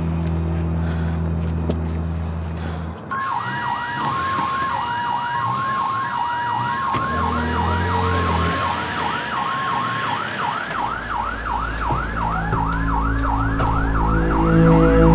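Police car sirens, coming in about three seconds in: one sweeps rapidly up and down a few times a second, while a second tone switches on and off beneath it. A deep low rumble joins about ten seconds in.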